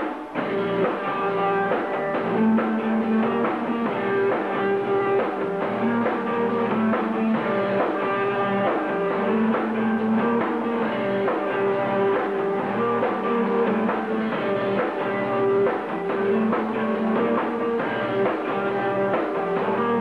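Live rock band playing, with electric guitar and drum kit, coming in right at the start with a riff that repeats every few seconds.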